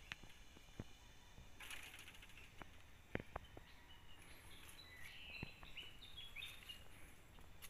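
Near-quiet undergrowth: a few small clicks and a brief rustle of twigs and dry leaves being handled while setting a sapling trap, the sharpest click about three seconds in. Faint bird chirps in the background from about halfway through.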